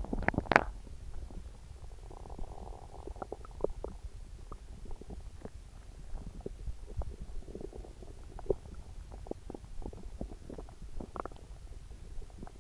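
Upset stomach gurgling: a run of short pops and clicks, with a longer bubbling gurgle about two seconds in and a fainter one near eight seconds, and the sharpest pop about half a second in.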